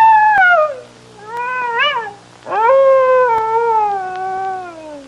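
Recorded fox calls: three drawn-out screams, each falling in pitch, the last the longest.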